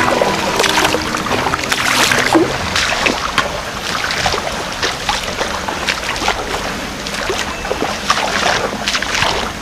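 Footsteps wading through shallow water and mud: repeated, irregular splashing and sloshing.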